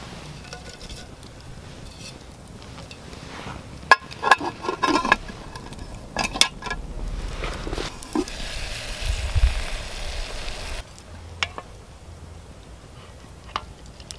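Aluminium mess tin handled over the campfire: a sharp knock, then several short ringing metal clinks. A steady hiss starts about halfway through, lasts roughly three seconds and cuts off abruptly.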